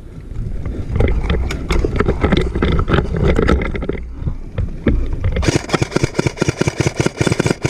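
Paintball markers firing, with scattered faint pops at first, then a rapid string of sharp shots, about eight to ten a second, from about five and a half seconds in. Low rumbling noise sits underneath.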